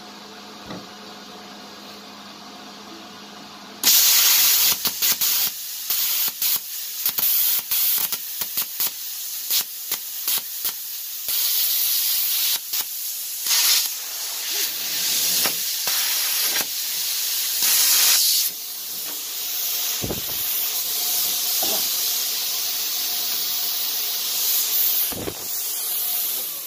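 Velt Cut 60 air plasma cutter firing through an improvised torch into thick steel: a steady hum, then at about four seconds a loud rushing hiss with crackling that sputters and breaks repeatedly for several seconds, then runs steadier until it cuts off near the end. The torch is not cutting this thick steel properly.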